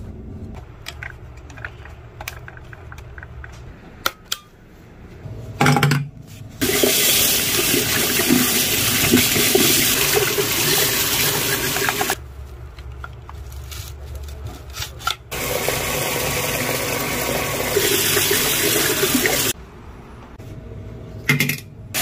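Tap water running into a bathroom sink while a Dreame V11 vacuum's filter is rinsed under the stream, in two spells of about five and four seconds. Before the water, small clicks and a knock of plastic vacuum parts being handled.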